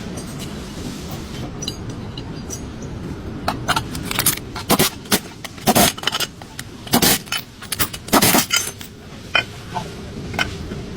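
Irregular metallic clinks and knocks, clustered through the middle, over a steady low hum.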